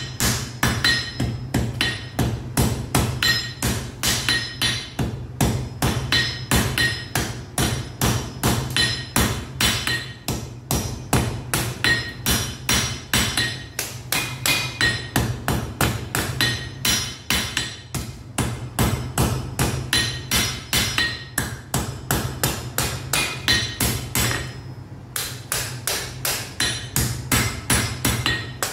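Blacksmith's hand hammer striking hot metal on an anvil in a fast, steady rhythm of about three blows a second, each blow ringing, with a brief pause near the end. A steady low hum runs underneath.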